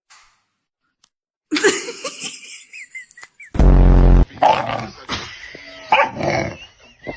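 A dog barking in a run of separate barks after a quiet first second or so, with one long, very loud bark about halfway through.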